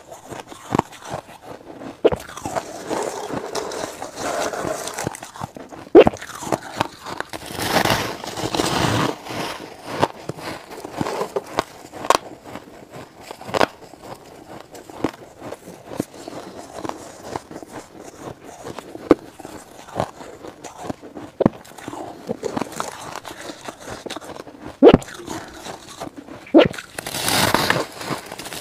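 Biting and crunching of fluffy frost ice: sharp crisp crunches scattered throughout, with longer grinding stretches of crunching about a third of the way in and near the end.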